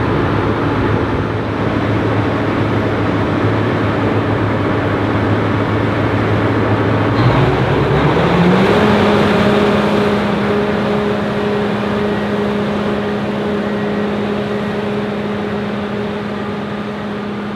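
Fendt Ideal 9T combine running. The engine hums steadily, then rises in pitch to a higher steady speed about seven to nine seconds in, and gets slightly quieter toward the end.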